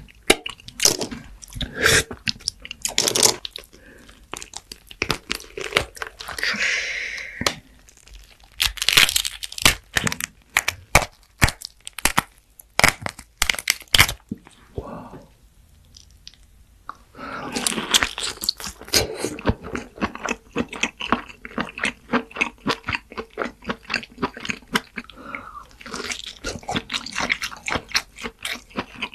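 Close-miked crunchy eating: loud crisp bites and chewing crunches, with a quieter pause midway and then a fast, dense run of crunching chews.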